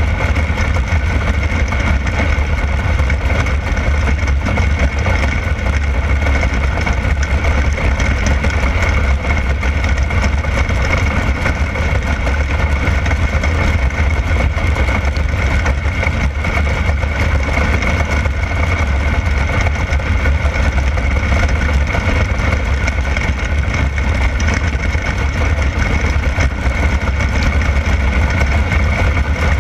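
360 sprint car's V8 engine running hard at racing speed on a dirt oval, heard from the cockpit. The sound is loud and steady throughout, with a heavy low drone.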